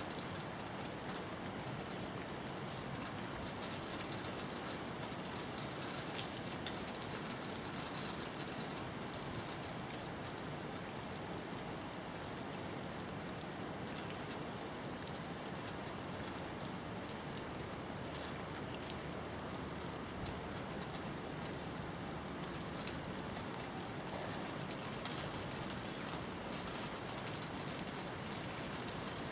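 Rain falling steadily: an even hiss with scattered sharp ticks of individual drops striking a surface.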